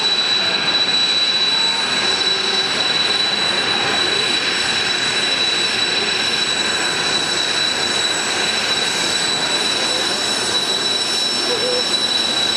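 Kawasaki T-4 jet trainers taxiing close by, their twin turbofan engines running at taxi power with a steady high-pitched whine over a rushing jet noise.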